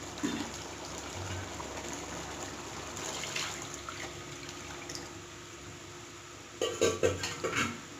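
Water being poured steadily into a pot of cooked chicken masala to make the biryani cooking liquid. Near the end there are a few short knocks of a vessel or utensil against the pot.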